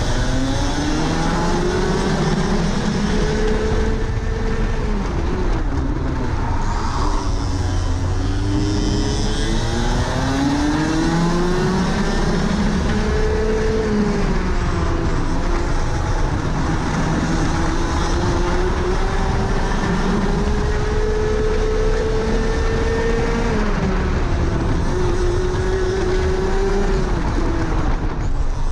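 Rotax Max Senior 125 cc two-stroke single-cylinder kart engine at race pace. Its revs climb steadily along each straight and drop sharply when braking for corners, about four times.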